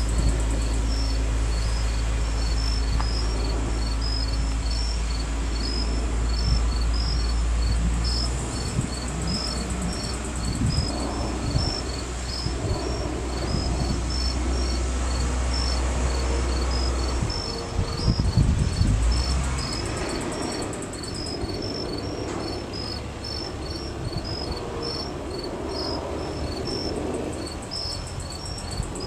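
Crickets chirping in a steady, regular rhythm over the low, steady hum of the crane's engine. The hum drops away partway through, and a rougher, louder rumbling stretch comes about two-thirds of the way in.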